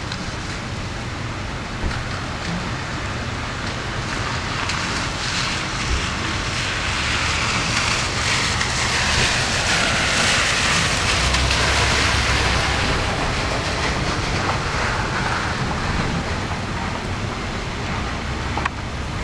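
A car's tyres hissing through standing floodwater as it drives past, swelling to a peak about halfway through and fading, over a steady hiss of wet street noise.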